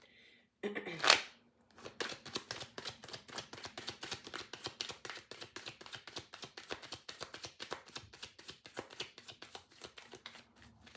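A deck of tarot cards being shuffled by hand: a sharp knock about a second in, then a long run of quick, even card clicks, several a second.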